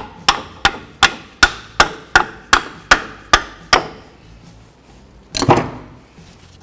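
Small hammer tapping on the brake assembly about eleven times in a steady rhythm of roughly three blows a second, knocking the second front brake pad loose. About a second after the tapping stops comes one short, rougher clatter.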